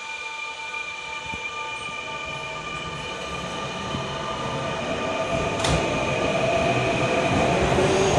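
Sotetsu 9000 series electric train pulling away, its motors giving several steady tones under a running noise that grows steadily louder. There is a single sharp clank about five and a half seconds in.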